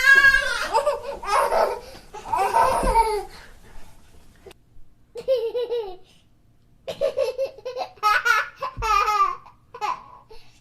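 A baby laughing in high-pitched, rapid laughs: a long run of laughter, a pause of about a second and a half, then more short fits of laughing.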